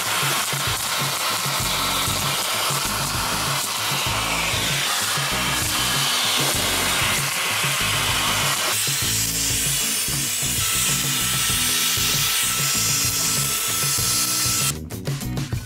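A small electric appliance motor runs with a steady rush of air through a black tube nozzle, and its sound shifts about nine seconds in. It cuts off suddenly near the end, under background music with a steady beat.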